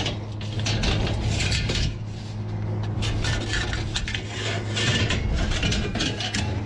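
Scrap sheet metal and spiral metal ductwork scraping and clanking as they are shifted by hand on a loaded trailer, in irregular knocks and scrapes, over a steady low hum.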